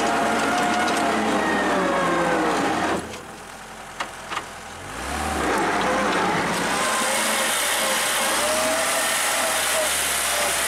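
Homemade tractor's engine running while it pushes snow with its blade, its pitch wavering up and down. About three seconds in the sound drops away abruptly for about two seconds, with two sharp clicks and a low thud, then the engine comes back.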